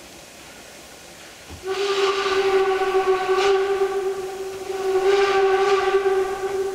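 Narrow-gauge steam locomotive's whistle blowing one long steady blast with a breathy hiss, starting about a second and a half in, easing a little midway and swelling again.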